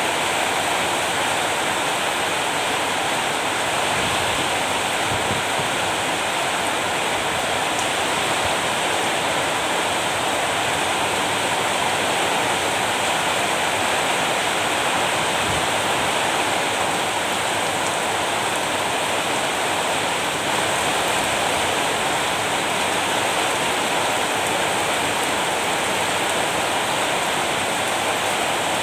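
Steady heavy rain: a dense, even rushing hiss that stays constant throughout, with no thunder or separate drops standing out.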